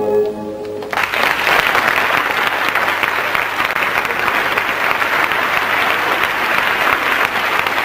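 The music's last held note dies away, and about a second in an audience breaks into steady, sustained applause for a ballet solo.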